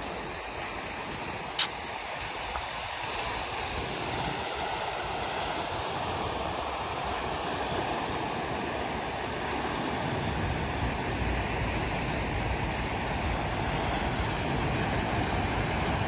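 Surf breaking on a sandy beach: a steady wash of waves, with wind rumbling on the microphone growing stronger in the second half. A single sharp click sounds about a second and a half in.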